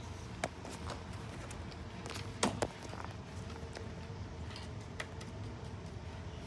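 Scattered light taps and knocks of small objects being handled on a wooden table, the loudest two close together about two and a half seconds in, over a steady low hum of room ventilation.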